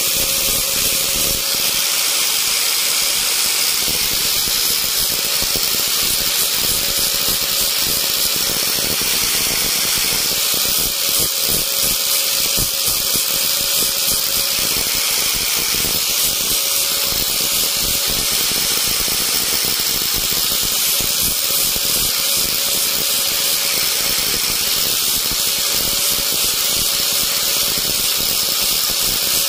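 Small high-speed electric motor, most likely a rotary carving tool, running steadily with a hissing whine and a constant pitch.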